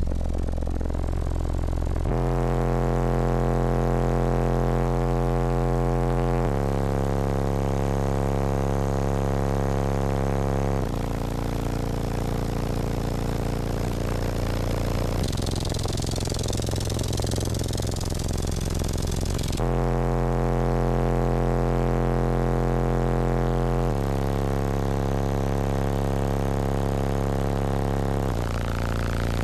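Car-audio bass demo inside a truck cab: four 15-inch Incriminator Death Penalty subwoofers playing a run of deep bass notes, each held about four seconds before the pitch changes.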